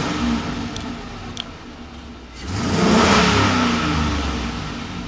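2003 Chevrolet Silverado's 6.0-litre LQ4 Vortec V8 free-revving with the truck standing still: a short rev right at the start, then a bigger rev to about 3,000 rpm about two and a half seconds in that slowly falls back toward idle. Heard from inside the cab.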